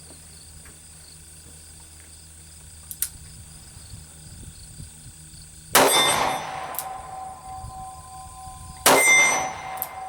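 Two shots from a 2-inch Smith & Wesson Model 10-5 .38 Special revolver, about three seconds apart, the first near the middle. Each shot is followed by a lingering metallic ring.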